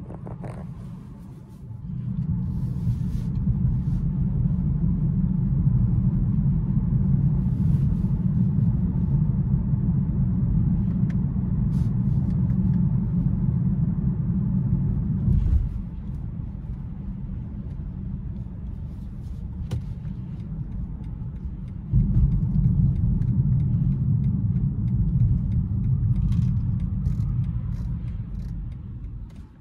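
Steady low rumble of road and drivetrain noise inside the cabin of a 2021 BMW 530i xDrive on the move. It grows louder a couple of seconds in, drops down about halfway through, comes back up suddenly later on, and fades near the end.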